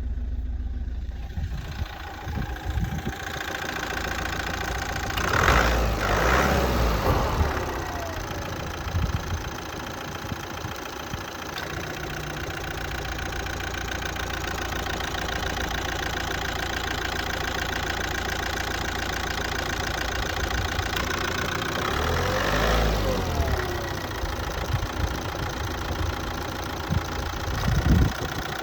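Opel Astra's Z17DTR 1.7 CDTI four-cylinder turbodiesel idling roughly and unevenly, the kind of idle its owner calls rough and strange. Twice the engine speed swells up and falls back, and there is a sharp thump near the end.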